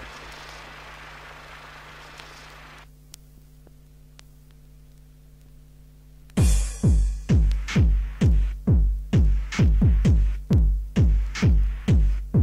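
Deep house track: a quiet, steady synth drone with a hiss of noise that falls away about three seconds in. About six seconds in, a drum-machine kick drum comes in, beating a steady four-on-the-floor pulse a little over twice a second.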